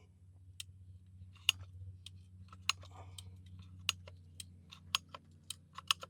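Hand PVC pipe cutter cutting through PVC pipe: a series of sharp clicks, about one a second and quicker toward the end, over a steady low hum.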